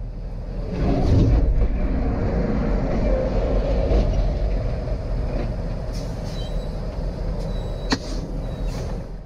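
Heavy semi-truck colliding with a box truck at highway speed: a crash about a second in, then steady heavy rumbling of the rigs and the road, with a sharp click near the end.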